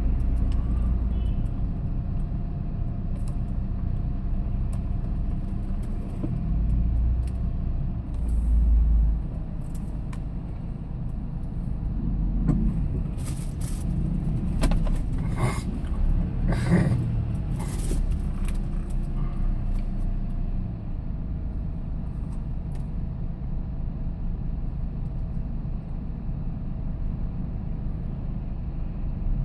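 Engine and road rumble heard from inside a moving vehicle's cabin, with a few sharp rattles or clicks near the middle.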